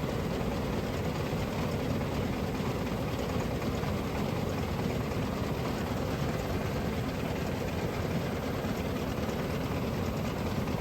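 A vehicle engine running steadily with an even, unchanging noise.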